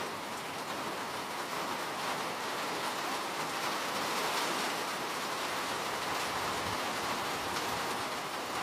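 Steady rainfall, a dense even hiss of raindrops without distinct single drops or thunder.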